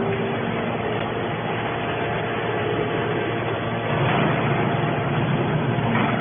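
Hydraulic scrap metal baler running: a steady, dense machine noise that swells slightly about four seconds in.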